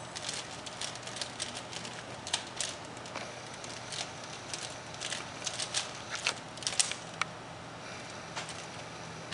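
Rubik's Cube being turned quickly by hand: a run of irregular plastic clicks and clacks as the layers snap round, thinning out after about seven seconds.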